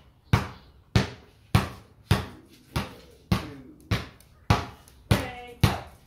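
Basketball being dribbled on concrete: a steady run of about ten sharp bounces, a little under two a second.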